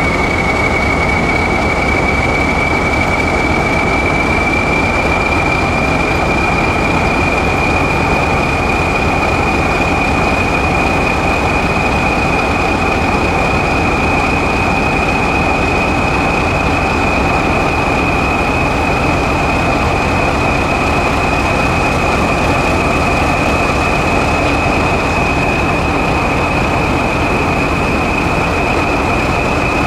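English Electric Class 40 diesel locomotive's 16-cylinder turbocharged engine running steadily after a warm start. A loud, steady turbocharger whistle rises slowly in pitch over the running engine.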